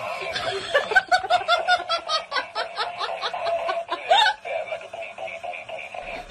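High-pitched laughter in quick rhythmic bursts for about four seconds, over steady tinny electronic music that carries on alone after the laughing stops.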